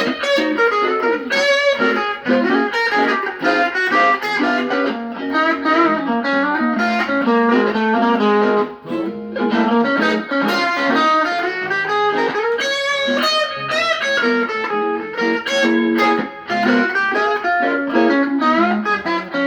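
Guitar playing fast single-note runs through a D-flat major pentatonic scale with chromatic passing notes, moving up and down the neck in a steady stream of picked notes with brief breaks about 8 and 12 seconds in.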